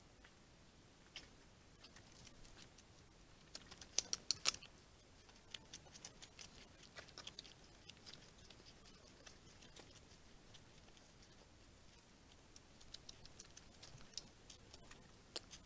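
Faint, sparse sharp clicks and ticks, with a quick run of them about four seconds in and another cluster near the end: small noises from a red fox vixen and her cubs moving at the den.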